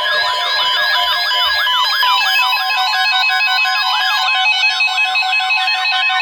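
Electronic emergency alert tones: a sweeping alarm tone repeating about three times a second, layered with steady and on-off beeping tones.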